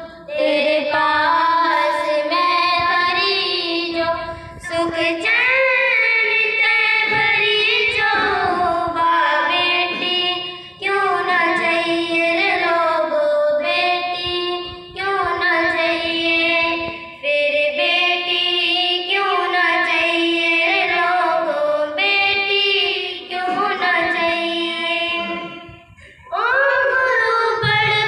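Young girls singing together into stage microphones, a melodic song in long phrases with short breath breaks, and a brief pause about two seconds before the end.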